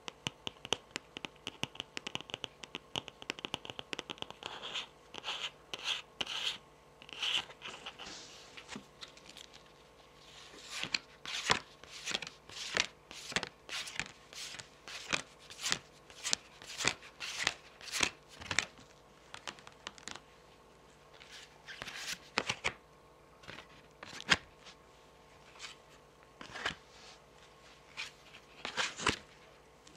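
Long fingernails tapping and scratching rapidly on a deck of tarot cards, a dense run of fine ticks. After a short pause about eight seconds in, cards are slid and laid down one after another, each a short swish or light slap.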